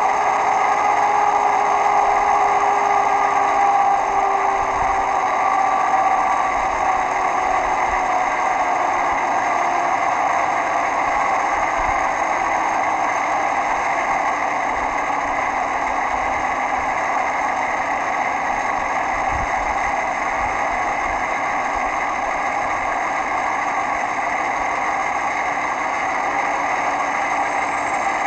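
ESU LokSound V5 sound decoder playing a China Railway DF4B diesel locomotive's engine sound. The engine's pitch falls slowly over the first several seconds as it winds down, then runs steadily.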